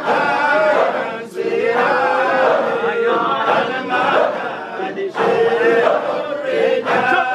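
A crowd of men chanting together in Sufi dhikr, a lead voice on a microphone over the group, with long held notes.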